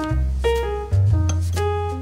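Background jazz music with piano and a bass line.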